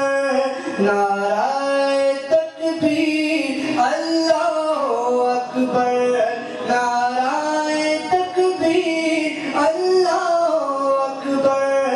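A man singing a naat solo into a handheld microphone, with no instruments: long held, ornamented notes that slide up and down between pitches, with short breaks for breath.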